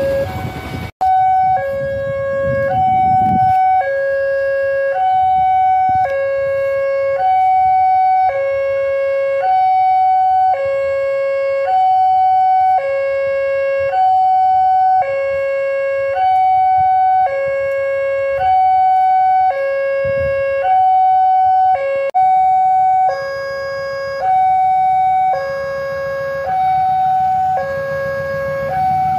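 Railway level-crossing warning alarm sounding a steady alternating two-tone signal, a low note and a higher note each about a second long, repeating without a break. It warns that a train is approaching the crossing.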